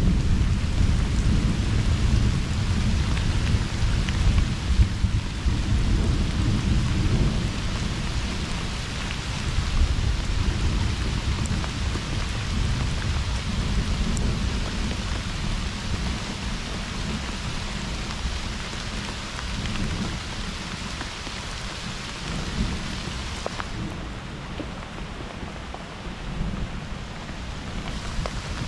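Heavy rain falling in a thunderstorm, with a low rumble of thunder that is strongest over the first several seconds and slowly dies away.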